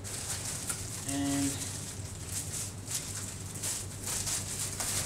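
Clear plastic bag crinkling and rustling in irregular crackles as it is handled around a power adapter.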